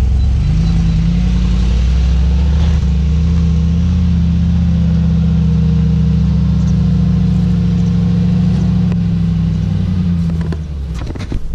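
Mercedes-AMG G63's twin-turbo V8 running steadily under load as the SUV climbs a steep ramp, the engine note getting quieter near the end as it pulls away.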